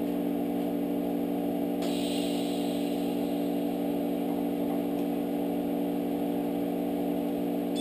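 TIG welder tacking 4130 chromoly steel tube: a steady electrical hum, with a soft arc hiss that comes in about two seconds in.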